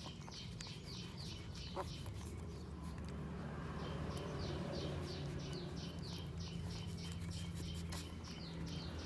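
A bird chirping in quick runs of short, falling, high chirps, about four a second: a brief run at the start and a longer one from about a third of the way in. A low steady hum runs underneath.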